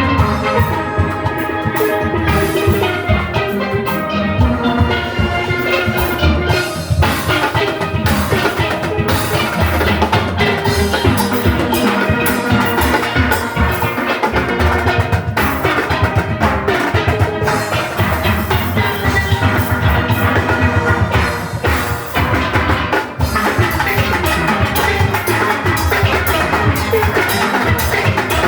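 Steel orchestra playing live: many steelpans sounding a fast tune over a drum kit and rhythm section, at a steady driving beat.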